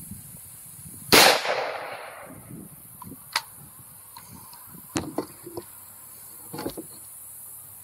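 A single AR-15 rifle shot about a second in, its report dying away over about a second, followed by a few small clicks and knocks.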